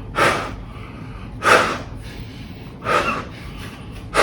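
A man blowing breaths by mouth into the valve of a sleeping pad's built-in pillow to inflate it: four short, forceful breaths about a second and a half apart.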